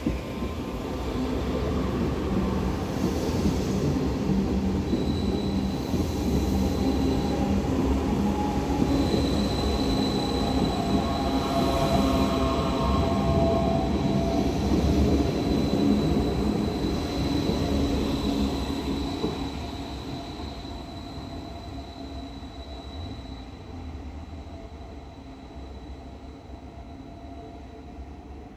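Athens Metro Line 1 electric train passing close by, a heavy rumble of wheels on rail with a thin, steady high-pitched squeal over it. The sound dies away over the last several seconds as the train moves off.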